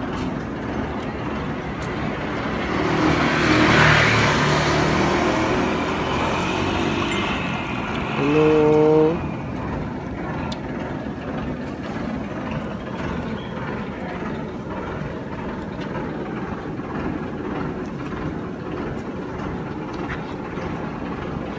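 A road vehicle passes, its engine and tyre noise swelling and fading over a few seconds, then a vehicle horn sounds once for under a second. Steady street background noise the rest of the time.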